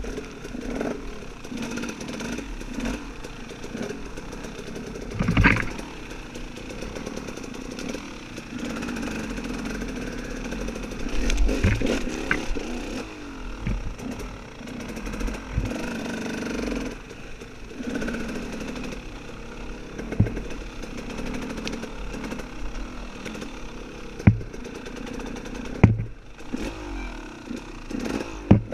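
Off-road dirt bike engine running and revving up and down as it rides a trail, broken by several sharp knocks.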